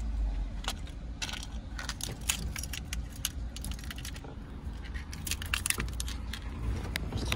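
A ring of car keys with a blue fob jangling in hand, a run of quick metallic clinks lasting several seconds as the keys are shaken and brought to the ignition, over a low steady rumble.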